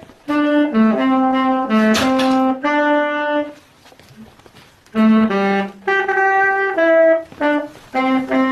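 Saxophone playing a slow line of single held notes, each about half a second long, with a pause of about a second and a half in the middle: a learner practising.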